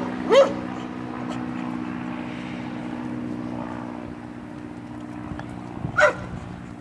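Short high-pitched animal calls, each rising and falling in pitch: one just after the start and another about six seconds in. A steady low hum runs beneath them.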